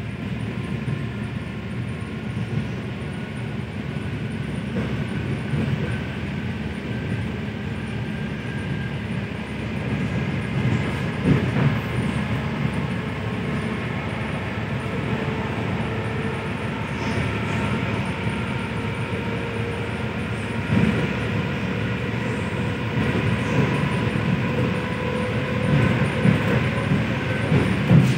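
ED4M electric train running between stations: a steady rumble of wheels on rail with a few sharp knocks over rail joints, and a faint whine that rises slowly.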